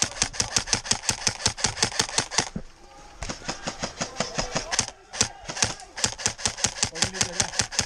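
Airsoft rifle firing on full auto: rapid, evenly spaced shots in several long bursts, with short pauses between them.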